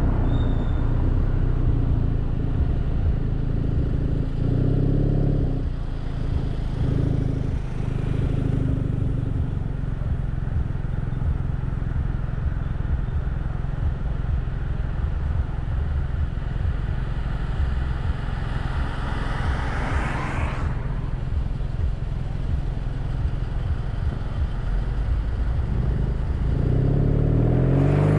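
Kia Rondo's exhaust and engine running steadily under way, heard from outside the car over constant road and tyre noise. Near the end the engine note climbs as the car accelerates.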